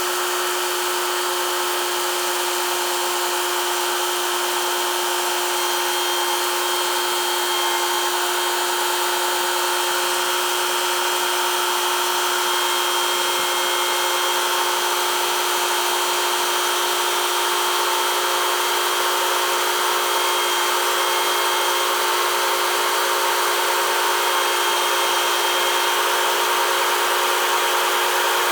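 Case IH 1480 Axial-Flow combine running steadily, a constant machine whine over an even rushing noise.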